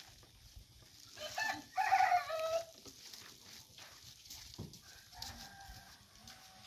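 A rooster crowing once, about a second in, the call rising and then falling away after about a second and a half. A fainter drawn-out call follows near the end.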